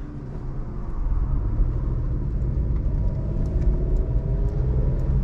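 Suzuki Alto 660cc three-cylinder engine pulling the car away at low rpm in the lower gears, over a steady low road rumble. Its note rises gently from about three seconds in as the car gathers speed.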